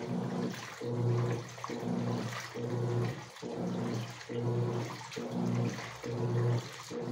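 Top-loading washing machine agitating in its standard mode: the drive motor hums in short, evenly spaced strokes a little over one a second, briefly dropping out as it reverses between them, while water and laundry slosh and churn in the tub.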